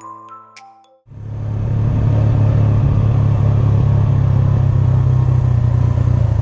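A few chiming music notes end about a second in. Then a motorcycle runs steadily while riding: a loud, even low drone with a rush of noise over it.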